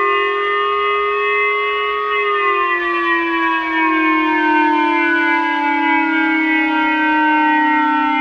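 Mock Emergency Alert System alarm tone: a loud chord of several held tones that begins sliding slowly down in pitch about two seconds in.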